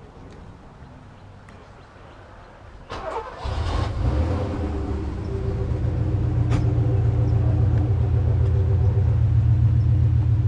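A car engine cranks and catches about three seconds in, then settles into a steady, loud idle.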